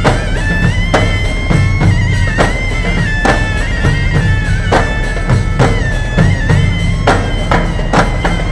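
Music: a wind instrument plays a held melody with small turns and ornaments over a steady drum beat.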